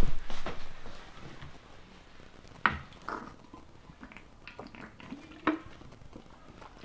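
Crawfish shells being cracked open by hand while eating: two sharp cracks about three seconds apart, with small eating noises between them.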